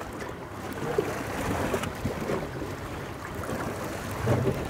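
Wind and sea noise on a boat at sea, with wind rumbling on the microphone.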